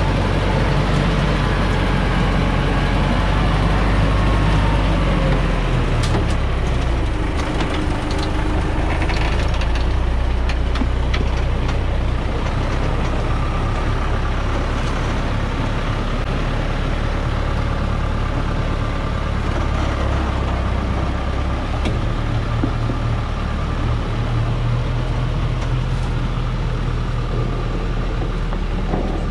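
Dongfeng logging truck's diesel engine running under load as the truck, heavily loaded with acacia logs, crawls over a rough rocky track, heard close up. The engine note shifts in pitch a few times, with some clattering knocks in the first third.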